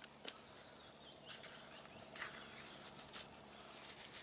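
Very quiet handling sounds: a few faint, scattered crackles and rustles as a freshly peeled sheet of willow bark is handled and opened out by hand.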